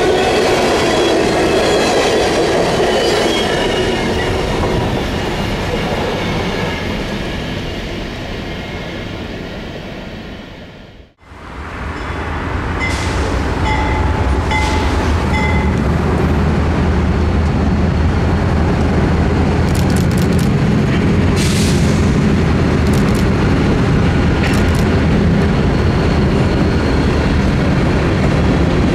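An empty grain train's cars rolling past, the wheels clicking over rail joints with a steady rumble. The sound fades, drops out abruptly about eleven seconds in, then comes back as a steadier low rumble with scattered clicks and a brief faint squeal.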